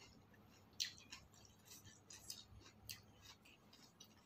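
Faint eating sounds as someone eats a meal with her fingers: a few soft clicks and crunches of chewing, the sharpest just under a second in.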